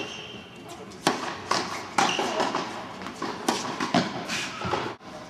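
Tennis rally on an indoor hard court: a ball struck by rackets and bouncing, heard as a series of sharp pops about a second or less apart.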